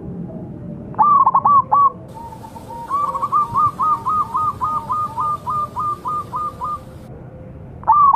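Zebra dove (perkutut) cooing: a loud phrase of a few short coos about a second in, then a quieter, faster run of about fourteen short coos over some four seconds, and the loud phrase starting again near the end.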